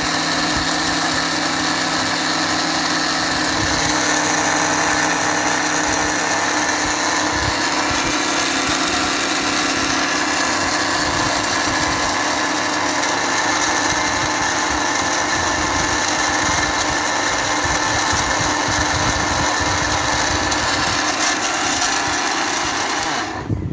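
Panasonic MX-AC555 mixer grinder's 1000 W motor running steadily at full speed, grinding cumin seeds into powder; it switches off abruptly at the end.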